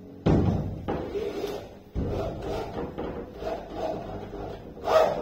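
Handheld power drill running into a wooden door frame. It starts suddenly, breaks off for a moment near two seconds, then runs on unevenly.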